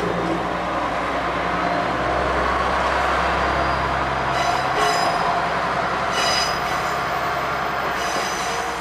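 KiHa 120 diesel railcar running on the line, its engine humming under steady rolling noise, with short high squeals from the wheels a few times.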